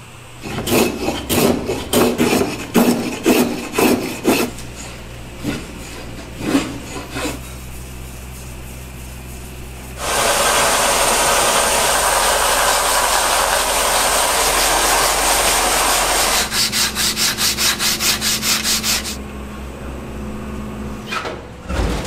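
Wooden sword-grip piece being shaped: first a run of separate rough rubbing strokes on the wood, then a power sander running with the wood pressed against it, a steady rasping noise with a thin high whine for about six seconds. It ends in a quick series of short pulsing passes, about five a second.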